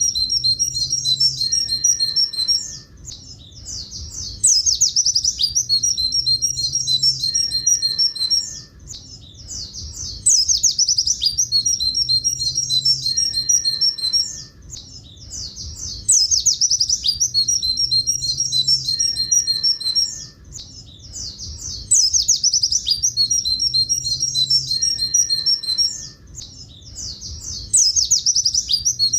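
Pleci buxtoni white-eye singing the same phrase over and over: a fast high trill running into a long string of quick 'tulit tulit' notes. Each phrase lasts about four seconds and comes back roughly every six seconds, a looped song-tutor recording.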